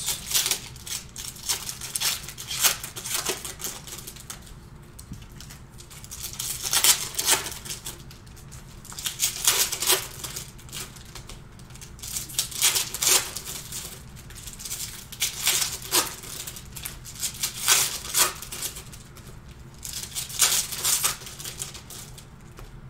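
Panini Prizm retail trading-card packs being handled, with wrappers crinkling and cards being shuffled and flicked in repeated bursts of crackling and clicking every second or two.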